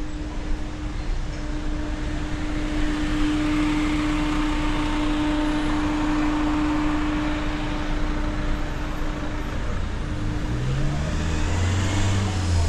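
City street traffic: a motor vehicle passes, its tyre and engine noise swelling and fading over several seconds, over a steady hum. Near the end a low engine note rises in pitch.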